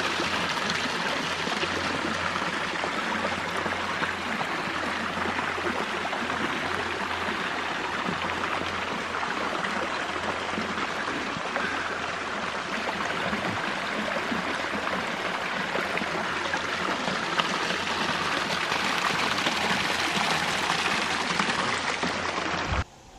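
Small woodland creek running over rock ledges in little cascades: a steady rush and splash of water that cuts off suddenly at the very end.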